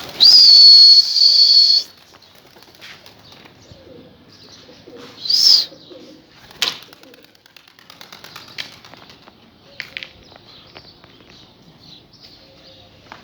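Rooftop pigeons with wing flaps. A loud, steady high whistle sounds for under two seconds at the start, and a shorter high whistle that rises then falls comes about five seconds in.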